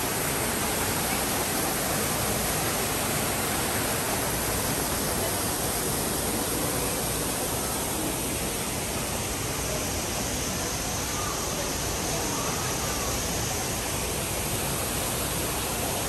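Steady rushing hiss of falling water, an even, unbroken noise.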